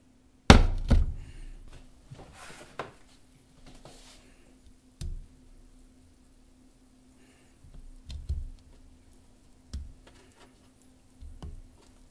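A nonstick frying pan knocked down onto a glass-top stove with a loud thunk about half a second in, then a few softer thuds as sausage slices are laid into the hot fat, with a brief sizzle and a faint steady hum underneath.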